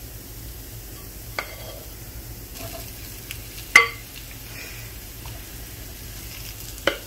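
Onion and minced beef mixture sizzling softly in a nonstick frying pan, with three sharp utensil knocks against the pan, the loudest about halfway through as mashed potato is tipped in.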